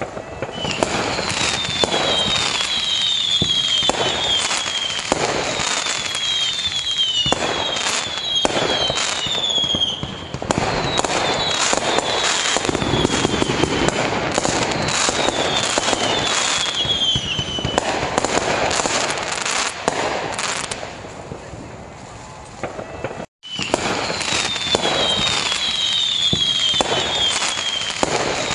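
Fireworks display: a dense barrage of bangs and crackling, with repeated strings of short falling whistles. The sound cuts out for an instant about three quarters of the way through.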